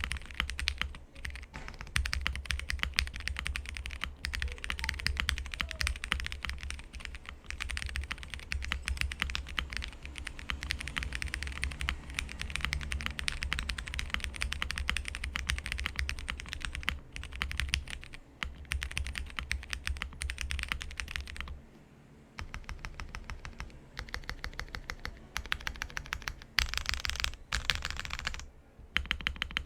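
Fast, continuous typing on a Space65 R3 custom 65% mechanical keyboard with stock Cherry MX Red Hyperglide linear switches and ePBT keycaps, foam-dampened, with a brief pause about three quarters of the way through.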